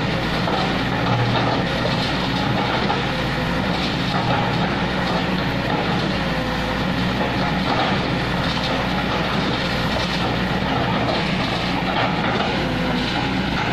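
Kobelco crawler excavator's diesel engine running steadily at close range.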